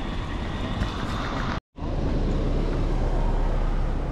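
Steady street ambience with road traffic noise, broken by a brief dropout to silence about halfway through where the recording cuts, then a slightly louder low rumble.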